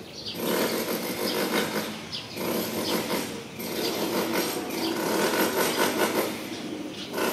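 A machine or power tool running in spells, dropping off briefly about two and a half seconds in and again near the end.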